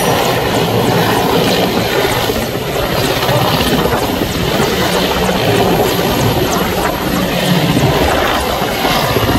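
Mi-17 transport helicopter hovering low: a loud, steady rotor and turbine noise that does not let up.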